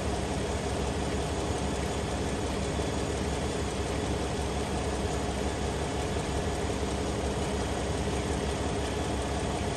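Pickup truck engine idling steadily, left running so the transmission additive mixes into the fluid.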